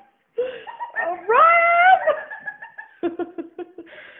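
A person's wordless vocal reaction: a high cry that rises in pitch about a second in, then a quick run of staccato laughter.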